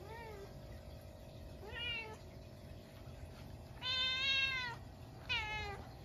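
Domestic cat meowing four times. The third call is the longest and loudest, and the last falls in pitch. These are the calls of a cat that has spotted a stink bug in the house.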